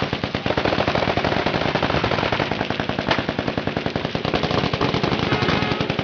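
Several machine guns firing full-auto at once in continuous, overlapping bursts, a dense unbroken rattle of shots.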